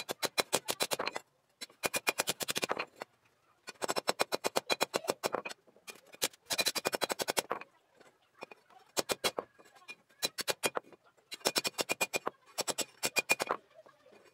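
Hammer striking a steel knife blade laid on a railroad-rail anvil: quick runs of blows, about six or seven a second, each lasting a second or so with short pauses between, every blow ringing metallically.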